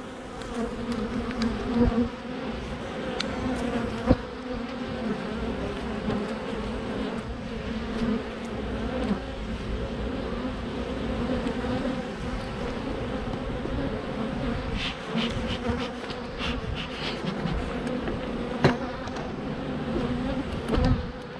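Steady buzzing hum of an open hive's colony of Italian honey bees (Apis mellifera ligustica) swarming over exposed frames. A couple of sharp clicks cut through it.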